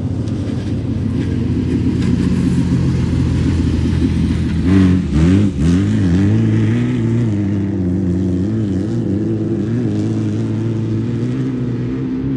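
Air-cooled Volkswagen flat-four engine of a Class 11 stock-Beetle desert race car running hard. About halfway through, the engine speed drops and climbs sharply a few times, then settles back to a steady run.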